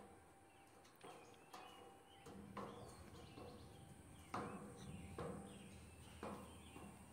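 Soft, irregular thumps of a toddler's hands and sandals on a metal playground slide as she climbs up it, several knocks a second or so apart; birds chirp faintly in the background.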